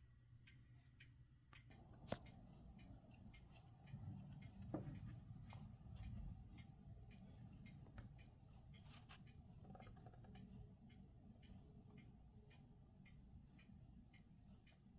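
Near silence with faint, rapid ticking, a sharp click about two seconds in, and a low rumble of distant thunder swelling from about four to seven seconds in.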